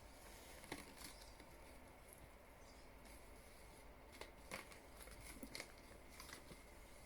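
Faint crinkling and rustling of plastic packaging being handled and torn open, a few short crackles spread through, over a steady low room hum.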